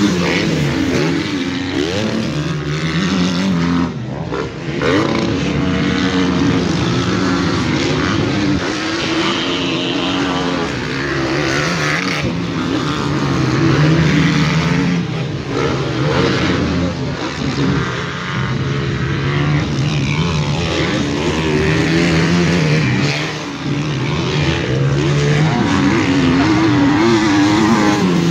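Motocross dirt bike engines racing around a dirt track, their pitch rising and falling over and over as riders open the throttle, shift and back off.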